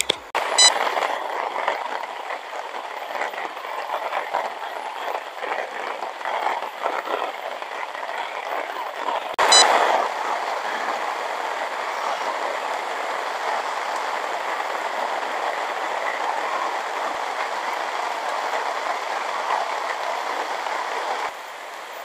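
Heavy rain falling on a camping tent and its tarp: a dense hiss of drops, uneven and crackly at first, then steady. There is a sharp click near the start and another about halfway, where the sound changes.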